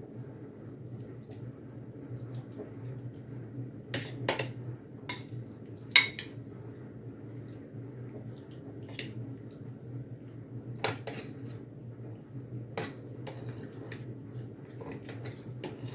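Metal spoon clinking and scraping against a glass bowl and a square metal food mould while diced salmon is spooned in and pressed down. Scattered light clinks, the sharpest about six seconds in, over a faint steady hum.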